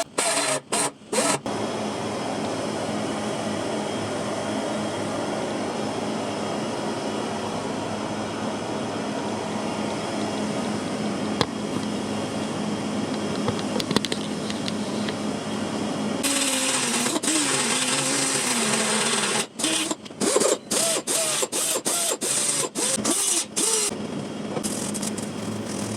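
A small power tool running steadily, its pitch wavering and cutting in and out in the later part.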